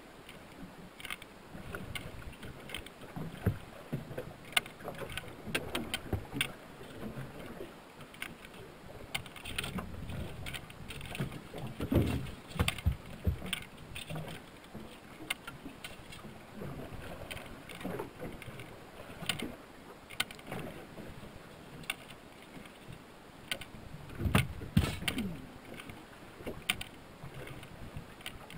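Irregular knocks, taps and thumps on an aluminum fishing boat while a freshly landed coho salmon is handled in the landing net. The heaviest thumps come about 12 seconds in and again around 25 seconds.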